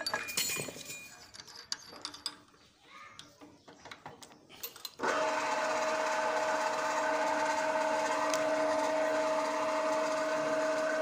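Scattered clicks and metal knocks of hand tools being handled. About five seconds in, a bench drill press motor switches on and runs with a steady whine and hum.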